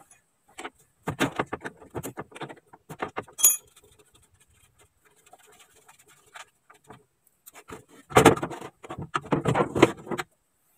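Metal clinking and rattling inside a car's steel door shell as the old mechanical window regulator is unbolted and worked out through the access hole. A single bright metallic ping comes about three and a half seconds in, and a longer burst of clattering near the end.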